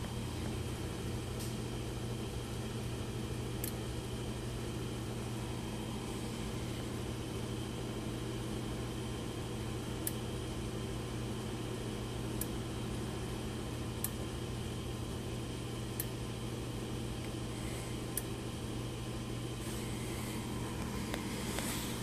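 Steady low hum with about seven short, sharp clicks spread through it: a rotary switch inside a brass 3/4" water shut-off valve clicking as the valve handle is turned, switching the lamp on and off.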